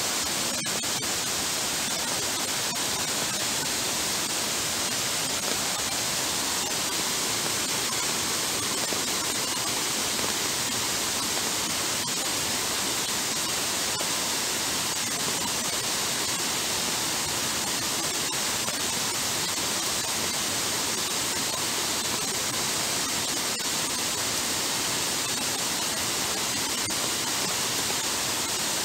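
Floodwater running over a paved path in heavy rain: a steady, even hiss.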